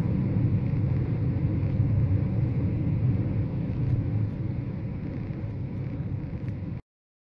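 Steady low rumble of a car driving at highway speed, road and engine noise heard from inside the cabin. It cuts off abruptly near the end.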